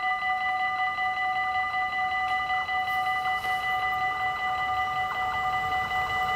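Dutch automatic half-barrier (AHOB) level-crossing warning bells ringing rapidly and steadily, the signal that the barriers are down and a train is approaching.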